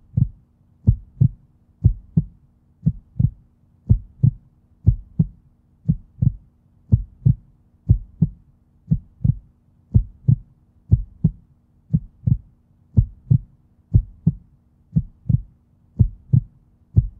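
Heartbeat sound effect: pairs of low, dull thumps in a lub-dub rhythm, about one beat a second, repeating evenly throughout.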